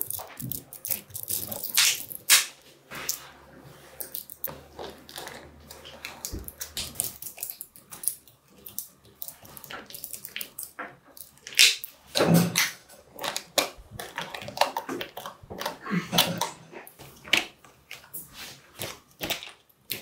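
Small magnetic balls clicking and clacking as hands pull strands and columns of them off a magnet-ball structure and snap them back on, in irregular runs of sharp clicks. The loudest clacks come about two seconds in and again about twelve seconds in.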